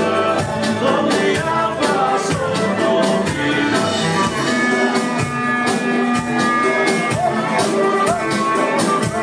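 Live Albanian folk dance music with a steady beat and held melodic notes.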